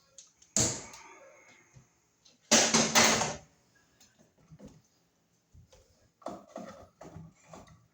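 Electrical cable being worked through a hole in the wall framing: a sharp knock about half a second in, then a louder scraping rustle around three seconds in, and smaller handling noises near the end.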